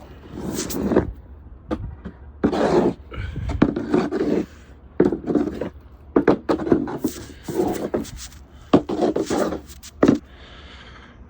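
A snow shovel scraping and pushing snow along the pavement in about eight strokes, some ending in a sharp knock of the blade.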